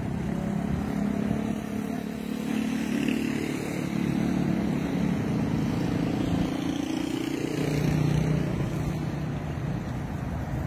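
Motor vehicle engines running on a street, a steady low hum whose pitch shifts and which swells slightly about eight seconds in.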